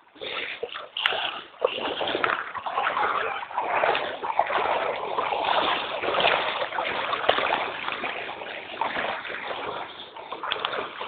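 Floodwater splashing and sloshing continuously, with irregular small splashes throughout.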